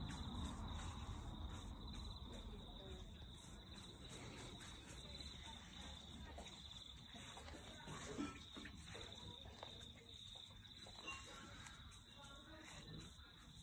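Faint, steady insect trill, made up of quick pulses at one high pitch, over a low rumble on the microphone.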